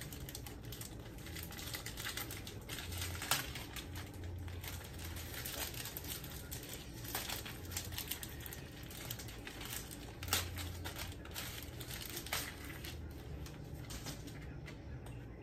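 Clear plastic packaging crinkling and rustling as a step-on foot pad is handled in its bag, with a few sharper clicks about three, ten and twelve seconds in.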